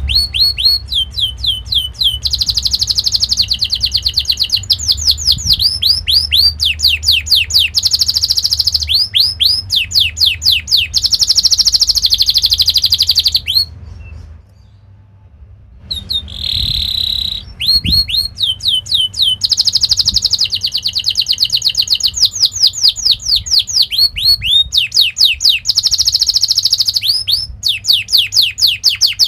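Domestic canary singing in fast rolling trills of repeated down-slurred whistled notes, broken by a pause of about two seconds around the middle.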